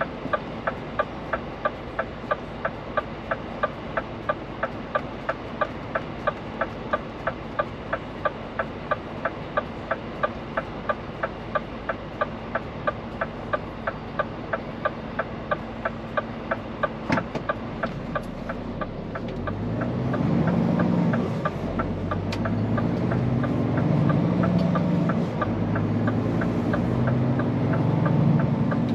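Turn-signal relay ticking steadily, about two to three clicks a second, over the Scania P410 truck's idling diesel engine. The ticking stops, and a few seconds later the engine pulls hard, its pitch rising in steps as the truck accelerates up through the gears.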